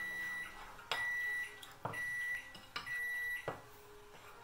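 Microwave oven beeping: a series of short, high, even beeps, about one a second, the end-of-cycle signal. A metal spoon stirring and clinking in a ceramic bowl sounds alongside.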